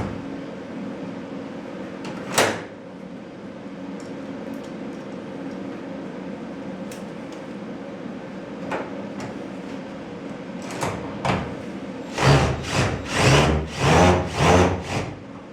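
Knocks and clatter from garage door parts being handled: a few scattered sharp knocks, then a run of loud thumps and rattles near the end, over a steady low hum.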